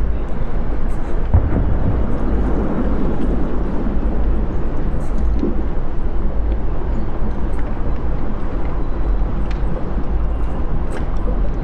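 Steady low rumble of wind buffeting the microphone, with faint scattered crackles of soil and roots being handled.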